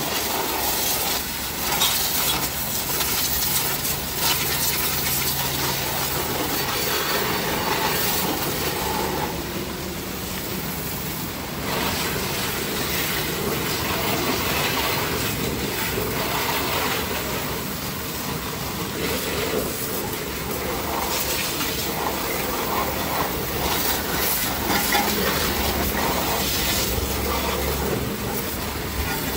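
High-pressure washer jet spraying steadily against a car's underbody and wheel arches, with the washer pump's low hum underneath.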